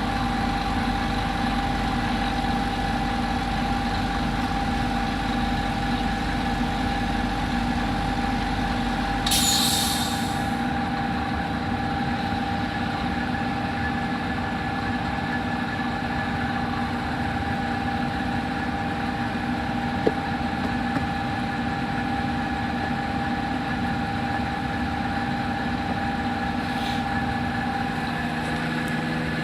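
Steady hum of running workshop machinery, made of several steady tones. About nine seconds in comes a short burst of air hiss, and the deepest part of the hum stops with it.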